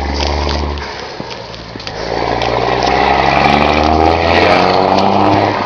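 A low steady engine hum stops under a second in. Then a motor vehicle's engine comes up and runs past close by, getting louder with its pitch shifting as it goes.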